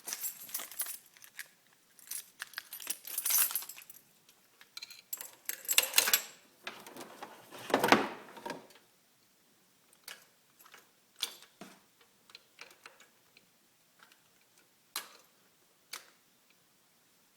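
A key ring jangling in a cluster of rattling bursts over the first half, followed by a few sharp isolated clicks spaced a second or more apart.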